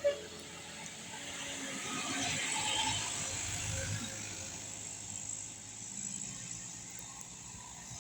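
A road vehicle passing by: its engine and tyre noise swells to a peak about three seconds in, then fades away. A short sharp sound comes at the very start.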